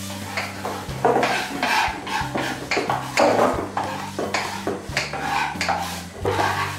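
Kitchen utensils clattering against pots, pans and dishes during cooking: irregular knocks and clinks.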